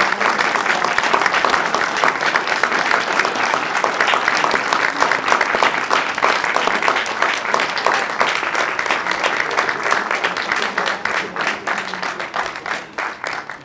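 Audience applauding, dense at first, then thinning to more scattered claps and dying away near the end.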